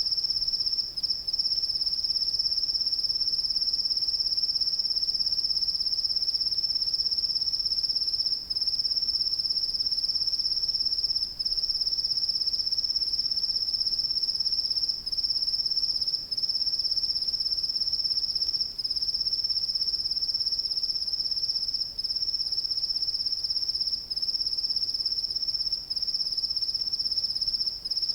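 Crickets trilling: one continuous high-pitched trill, broken only by short gaps every few seconds.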